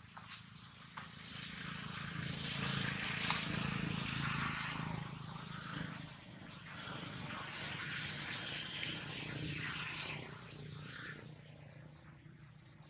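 A distant engine swells over several seconds, dips, swells again and fades away, with one sharp click about three seconds in.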